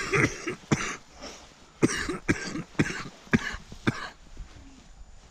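A person coughing: a run of several short, sharp coughs over about four seconds.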